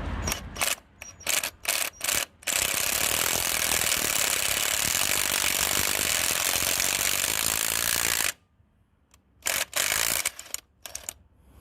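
Ratchet wrench clicking as it runs a nut down onto a Massey Ferguson tractor's new axle: a few short strokes, then about six seconds of fast continuous ratcheting, then a pause and a few more short strokes near the end.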